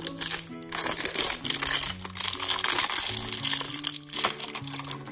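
Toy packaging crinkling and rustling as it is torn open, densest from about a second in until about four seconds in, over background music.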